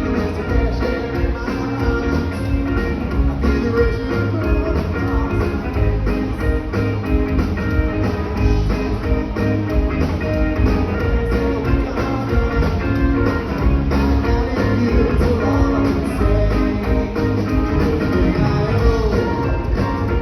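Live funk jam band playing an instrumental stretch: guitar over bass and a steady drum beat.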